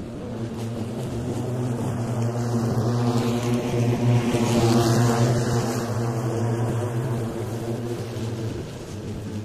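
Ryobi ride-on lawnmower running and cutting long grass, a steady hum that grows louder as it drives up, peaks as it passes close about five seconds in, then fades as it moves away.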